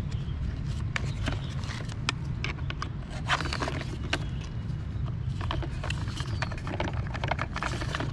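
Plastic toy-truck wheels and body clicking and clacking as the wheels are pushed onto metal axles and turned by hand, a string of irregular clicks over a steady low rumble.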